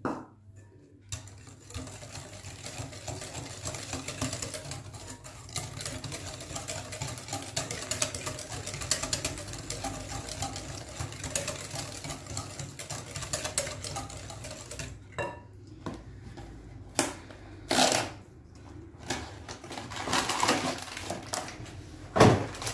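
Wire balloon whisk beating egg yolks and milk in a glass bowl: a fast, steady rattle of the wires against the glass that stops about fifteen seconds in, followed by a few separate knocks.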